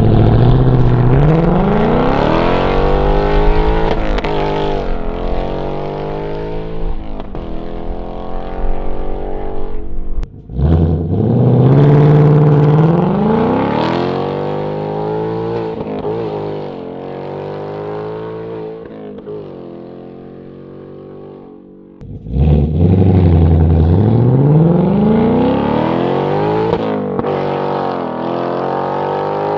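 Ford Mustang's 5.0 Coyote V8 through a combined H-pipe and X-pipe resonator-delete exhaust, accelerating hard three times. Each pull starts suddenly and the exhaust note climbs in pitch, with short breaks at the gear changes, then fades as the car pulls away.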